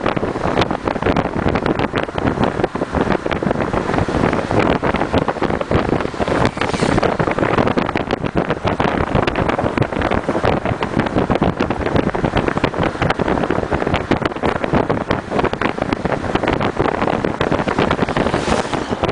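Wind buffeting the microphone over the steady road and engine noise of a moving car, heard from inside the cabin. A brief rush of hiss comes near the end as an oncoming minibus passes.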